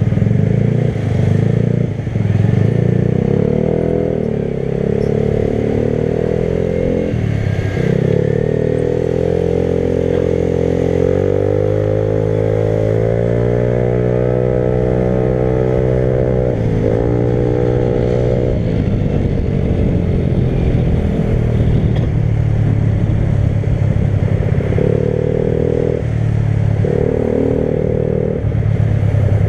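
Motorcycle engine running under way, its pitch climbing steadily as it accelerates, dropping sharply once about halfway through as it shifts gear, then stepping up and down again near the end.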